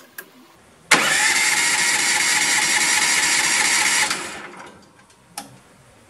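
The electric starter cranks a 13.5 hp Briggs & Stratton engine steadily for about three seconds, then lets go and it spins down without catching. The owner thinks the engine won't fire because the emergency stop switch was left in the stop position. A couple of short clicks come before and after.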